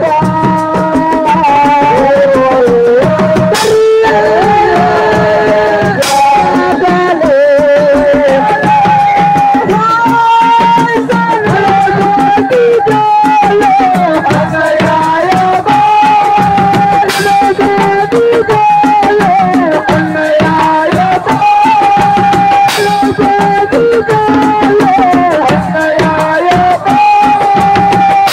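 Live Senegalese assiko band music: a lead singer carries a wavering melody with long held notes over fast, dense hand-drum percussion, with a few sharp accented hits.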